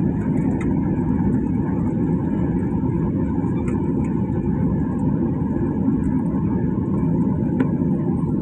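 Steady cabin rumble of a Boeing 737-800 rolling on the ground after landing, the CFM56-7B engines and wheels running together with no change in level, heard from inside the cabin.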